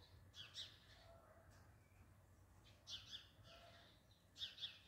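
Faint high chirps of a small bird, short pairs of quickly falling notes heard three times over a near-quiet background.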